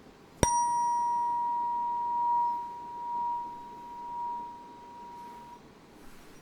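A tuning fork struck once, ringing a high, pure tone that swells and fades a few times and dies away about five seconds later.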